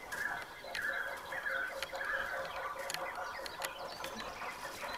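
Footsteps crunching through dry leaf litter and brush, with twigs snapping and branches scraping in irregular sharp clicks. Several short, faint higher calls come in the first half.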